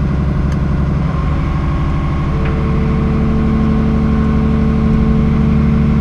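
Volvo EC210CL excavator's diesel engine running steadily, stepping up in pitch about two seconds in as the hydraulics lift the boom and bucket.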